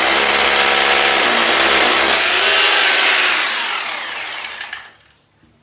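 Bosch heavy-duty hammer drill with a 16 mm bit running at full speed as it drills straight through a thin wall. About three seconds in the trigger is released and the motor winds down with a falling whine, stopping about five seconds in.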